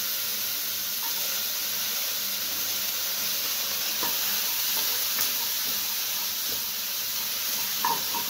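Chopped carrots, onions and green beans sizzling steadily in melted butter in a nonstick kadai, with a few light scrapes of a wooden spatula stirring them.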